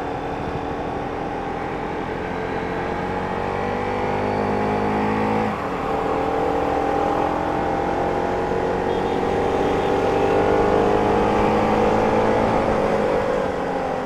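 Motorcycle engine under way, its pitch climbing steadily, dipping briefly about five and a half seconds in as it shifts up a gear, then climbing again and easing off near the end, over a steady rush of wind and road noise.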